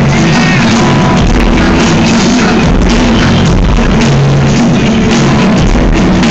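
Live band playing loud rock music with drums, recorded on a phone in the audience.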